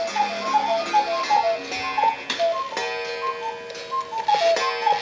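Carved Black Forest-style cuckoo clock calling the hour at twelve o'clock: the two-note cuckoo call, high then low, repeated a little under twice a second, over the ticking of the clock.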